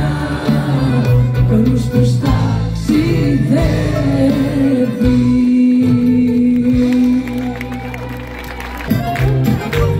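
Live band music with a woman singing into a microphone. About halfway through she holds one long note.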